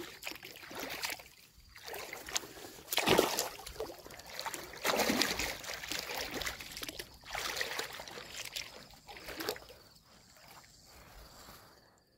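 Water sloshing and splashing as a person wades through shallow dam water with a landing net, in irregular surges about once a second, the loudest about three seconds in, dying away near the end.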